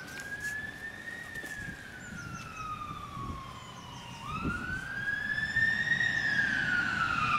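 Emergency vehicle siren wailing in slow rises and falls, two long sweeps, the second louder.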